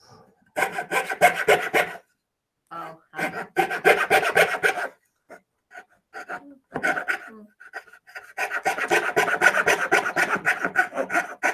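Coping saw cutting through a thin wooden blank in quick, short strokes, about six a second, in three runs with brief pauses between. It is finishing the cut around the emblem's outline.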